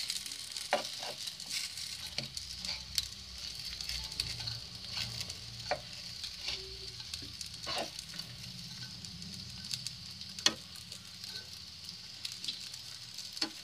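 Squares of wheat-flour snack shallow-frying in oil in a steel pan on a low flame: a steady sizzle with scattered crackling pops as the pieces brown.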